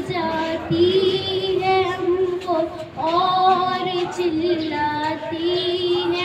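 A young girl singing solo into a handheld microphone, with no accompaniment. She holds long notes in two phrases, with a short breath between them about three seconds in.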